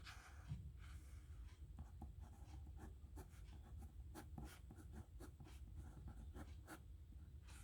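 Faint scratching of a nib pen writing on paper, in many short strokes with light ticks as the nib touches down and lifts.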